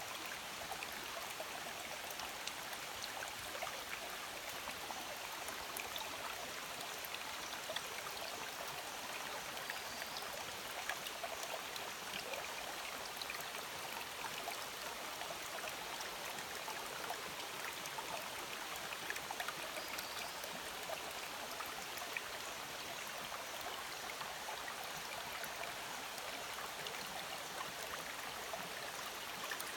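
Shallow, rocky stream flowing steadily over stones: an even babble of running water with small scattered ticks and splashes.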